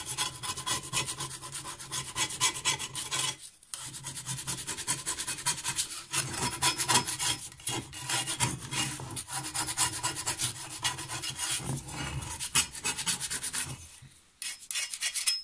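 Small hand scraper scraping caked grass and build-up off a lawn mower blade in quick, repeated strokes, with a few short pauses. This is the blade being cleaned before it is balanced.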